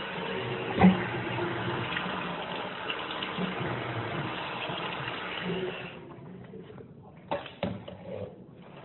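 Tap water running into a bathroom sink, with a sharp knock just under a second in, cutting off suddenly about six seconds in. Two quick knocks follow near the end.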